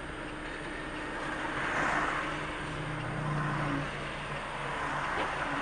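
Car driving slowly in traffic on a wet road, heard from inside the cabin: a steady engine hum and tyre noise, the hum growing stronger for about a second midway.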